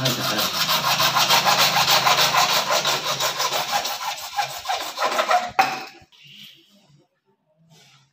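Hand-held hacksaw blade sawing in quick, even back-and-forth strokes, several a second, stopping abruptly with a sharp knock about five and a half seconds in.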